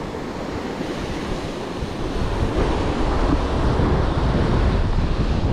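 Sea surf breaking and washing over rocks below a cliff, with wind buffeting the microphone; it grows louder about two seconds in.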